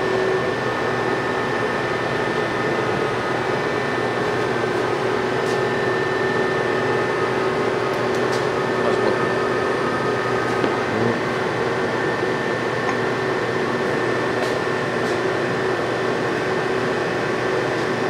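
Millport Rhino III CNC bed mill running a program: its inverter-driven spindle turns at speed with a steady hum and a high, even whine. A few faint ticks come through along the way.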